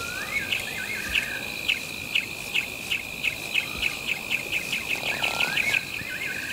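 Night insects: a steady high trill with a repeating chirp that speeds up from about two a second to about four. A bird's short whistled call, rising and falling, comes twice, at the start and about five seconds in.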